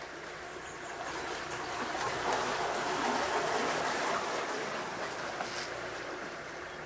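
Water rushing around a moving narrowboat, swelling for a few seconds in the middle and then easing. The boat's engine runs low and steady underneath.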